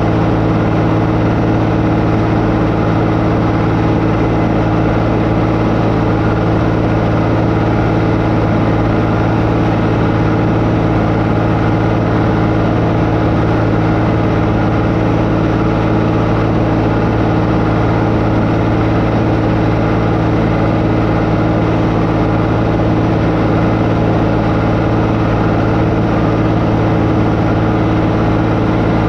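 Tractor engine running at a constant speed, a loud steady drone with an unchanging pitch, as it works a crop sprayer.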